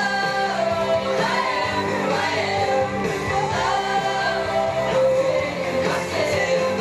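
Upbeat pop-rock song with sung vocals over guitar accompaniment.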